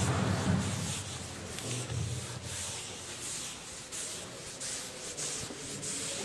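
A hand-held duster wiping a chalkboard in repeated back-and-forth strokes, about two a second, a scratchy rubbing hiss.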